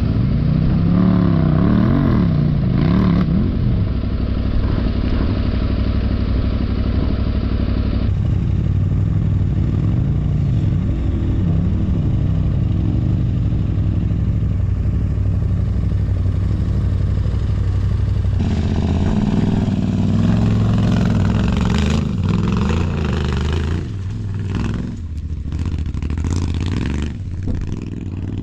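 Adventure motorcycle's parallel-twin engine revving up and down while ridden off-road, with clattering knocks in the last few seconds.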